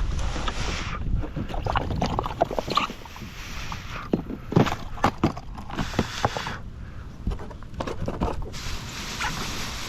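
Irregular knocks, clicks and scrapes on a small kayak, with a few stretches of rushing noise.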